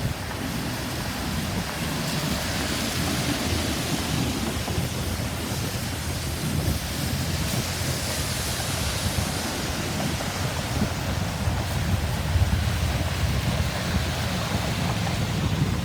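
Wind buffeting the microphone: a steady rushing noise with a fluttering low rumble. No siren is heard.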